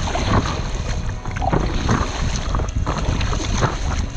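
Wind buffeting the microphone over choppy water slapping and splashing against the nose of an inflatable paddle board, with irregular splashes as the paddle is stroked through the water.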